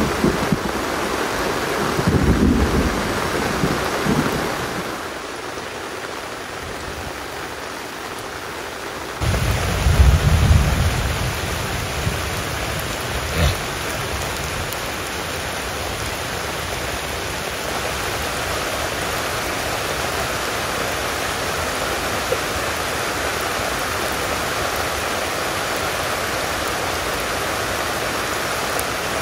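Heavy rain falling steadily, with deep low rumbles about two seconds in and again around ten seconds. The rain eases for a few seconds in the middle, then comes back suddenly.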